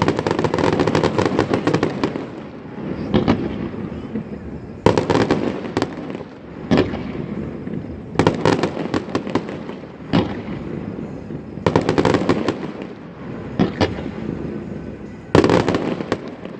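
Fireworks display: a dense crackle, then aerial shells bursting one after another, a sharp bang every second or two, each followed by crackling and a rumbling echo.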